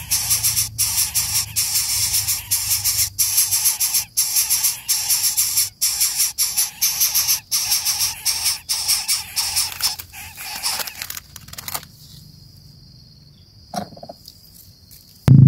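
Steady high-pitched insect chorus, broken by brief gaps, that cuts out about twelve seconds in, leaving it much quieter apart from one short faint sound near the end.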